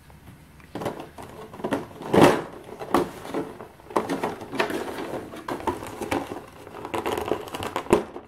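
Thin black plastic insert tray crinkling and clicking as a miniature figure is worked out of its pocket by hand, with the sharpest snap about two seconds in.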